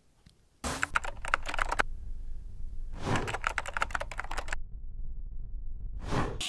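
Computer keyboard typing: two runs of rapid key clicks, starting about half a second in and again about three seconds in, over a low steady hum, with a brief rush of noise near the end.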